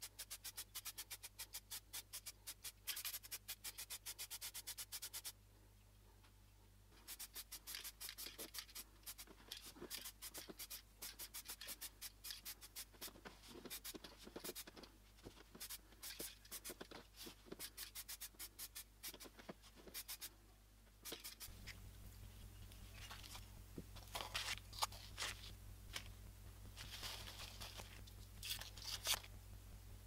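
Aerosol spray paint can being shaken, its mixing ball rattling in quick, even clicks, broken by a pause and later turning uneven, with short spray hisses; a low hum comes in about two-thirds of the way through.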